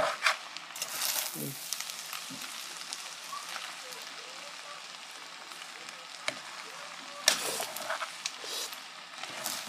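Spaghetti being stirred and tossed with a fork in a hot pan over a steady sizzle. A few sharp scrapes and clinks of the fork against the pan cut through it, the loudest about a second in and near the end.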